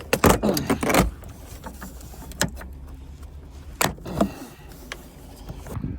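Sharp knocks, clicks and creaks of car interior trim and parts being pulled off by hand, the loudest knocks about a second apart near the start and another about four seconds in, over a low steady rumble.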